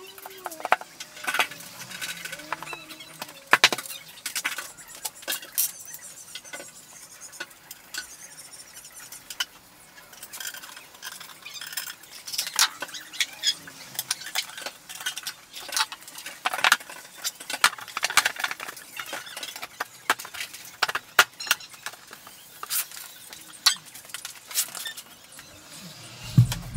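Particleboard panels of an IKEA Malm chest of drawers being fitted together by hand, with a screwdriver in use: a run of irregular clicks, taps and knocks, and a low thud near the end.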